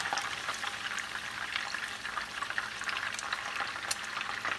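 Chicken drumsticks sizzling in shallow oil in a frying pan: a steady sizzle with many small crackling pops.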